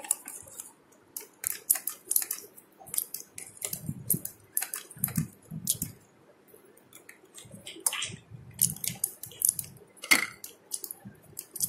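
Plastic toy vegetables handled in a shallow toy-kitchen sink of water: irregular clicks, taps and small splashes, with a few soft knocks of plastic on plastic.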